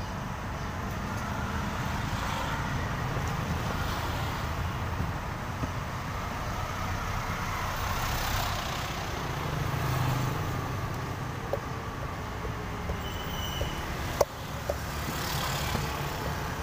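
Steady rumble of road traffic, with coconut water poured from the coconut into a plastic cup in the first half. Several sharp knife taps on the coconut come near the end, one louder than the rest.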